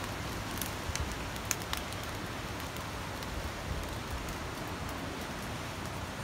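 Wood campfire burning in a fire ring: a steady hiss with a few sharp crackles and pops in the first couple of seconds.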